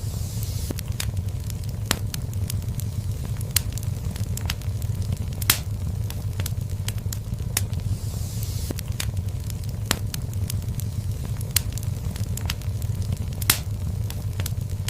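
Wood fire in a fireplace crackling, with irregular sharp pops over a steady low rumble. Two louder pops come about five and a half and thirteen and a half seconds in, and a soft hiss swells up near the start and again about eight seconds in.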